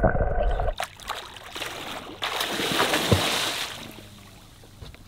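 Muffled underwater rumble for the first moment, then water splashing and sloshing at the surface, growing quieter near the end.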